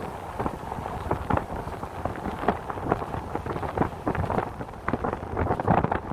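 Car driving on a snowy road: a steady low road rumble with frequent irregular crackling taps.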